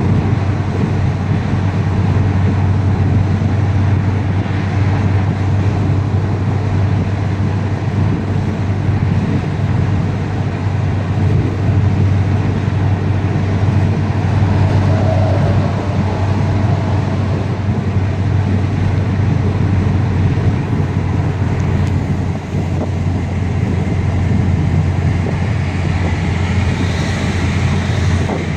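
Car's engine and tyre noise heard from inside the cabin while driving at a steady speed: a continuous low drone with road rumble.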